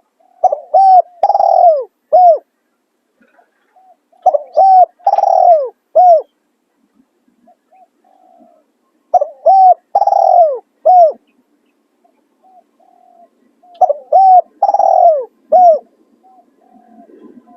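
Spotted dove cooing: four song phrases about four to five seconds apart, each a few short coos and one longer coo that falls in pitch.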